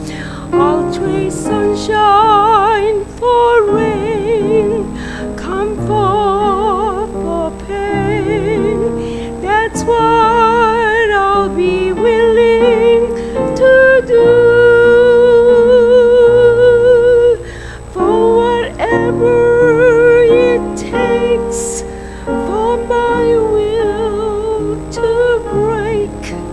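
A woman singing a solo hymn with a wide vibrato, to piano accompaniment, holding one long note about halfway through.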